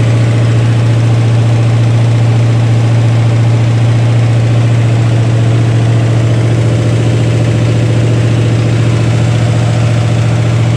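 Freshly rebuilt Mopar 318 small-block V8 running steadily through straight pipes during its first-run break-in.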